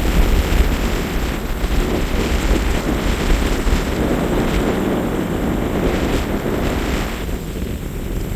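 Strong wind buffeting the microphone, with the wash of a choppy sea's surf behind it.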